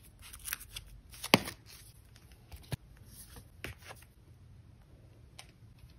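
Clear plastic sleeve pages of a photocard collect book being flipped and handled: light rustling with a string of sharp clicks and taps, the loudest about a second in, growing sparse in the last couple of seconds.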